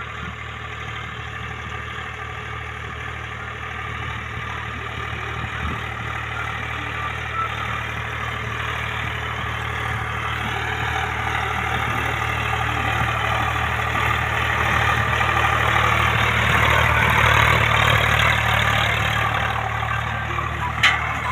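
Tractor diesel engine running steadily under load while pulling a disc harrow through wheat stubble, growing louder as it comes close and then easing off. There is one sharp click near the end.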